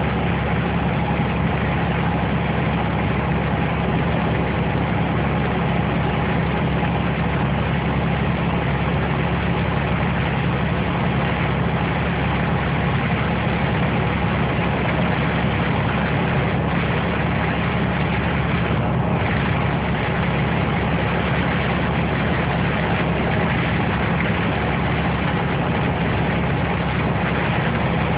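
Steady vehicle engine drone with an even hum, unchanging throughout; no thunderclaps stand out.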